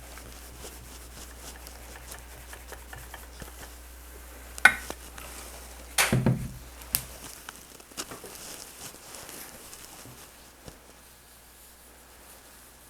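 Handling noises from pressing fabric on an ironing surface. There is a sharp knock about four and a half seconds in, then a louder clatter about six seconds in, with light rubbing and rustling around them. A faint low hum stops about seven seconds in.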